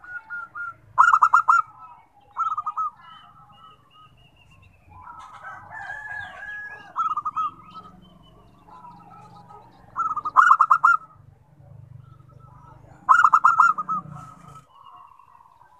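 Zebra dove (perkutut) cooing: several short phrases of quick, stuttering notes with pauses of a few seconds between them. A fainter jumble of other bird calls comes in around the middle.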